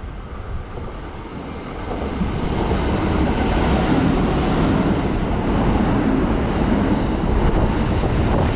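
A Kintetsu electric commuter train running along the platform track, its motor and wheel-on-rail noise swelling about two seconds in and then holding steady.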